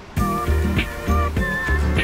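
Background music with a steady beat of about two beats a second and a melody line over it.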